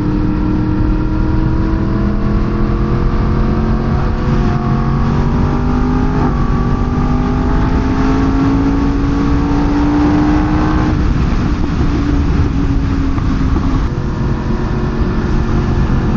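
Sportbike engine and exhaust under way, its note climbing slowly and steadily for about ten seconds, then dropping and holding steady. A dense rush of wind and road noise runs underneath.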